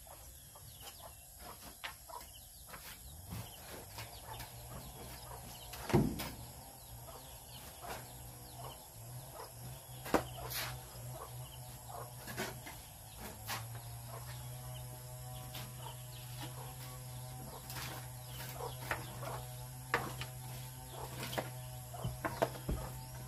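Chickens clucking amid scattered sharp knocks and taps, the loudest a thump about six seconds in, over a steady low hum that grows stronger about halfway through.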